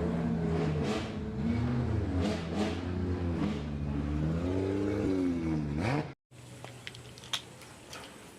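Car engine revving sound whose pitch rises and falls over and over, cutting off abruptly about six seconds in. After that come faint scattered clicks and rattles of plastic toys being handled.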